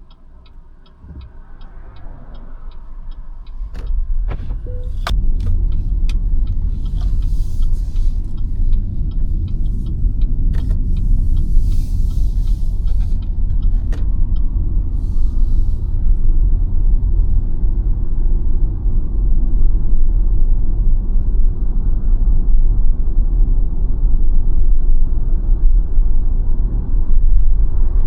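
Steady low road and tyre rumble of a BYD Sealion 7 electric SUV on the move, building over the first few seconds as it gets under way and then holding. Fast regular ticking at the start, with scattered clicks and brief hisses through the first half.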